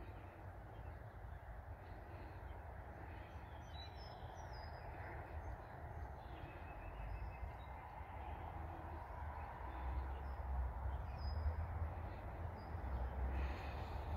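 Quiet outdoor field ambience: a steady hiss with a low rumble that grows louder near the end, and a few faint, short bird calls scattered throughout.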